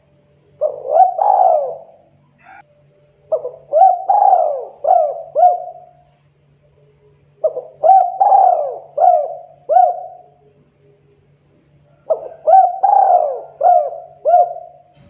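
Spotted dove (tekukur) cooing: four phrases roughly four seconds apart, each a quick run of rising-and-falling coos, the first phrase shorter than the rest. A faint steady hum lies underneath.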